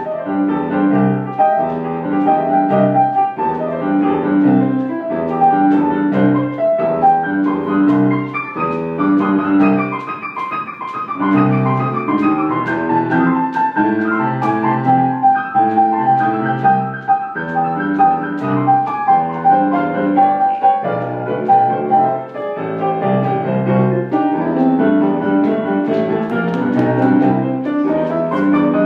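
Piano playing an instrumental rhythm-and-blues passage: steady pulsing chords in the low range under a higher melody line.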